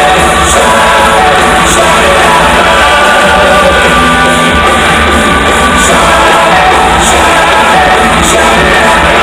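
Loud rock music with singing and shouted vocals. A sharp, high accent recurs about every second and a quarter.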